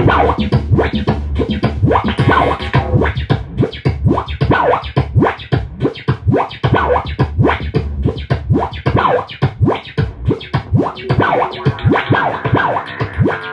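Twelve-string acoustic guitar strummed fast and hard, chords ringing with rapid even strokes; it starts suddenly right after a brief quiet pause.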